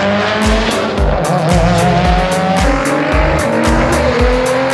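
Background music with a steady beat over racing car engines accelerating hard, the pitch rising and then dropping at a gear change about four seconds in before it climbs again.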